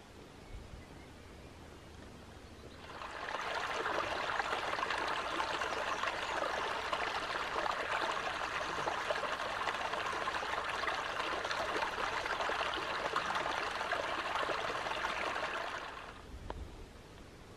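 Small shallow stream trickling and babbling over rocks, heard close up. It fades in about three seconds in and fades out near the end.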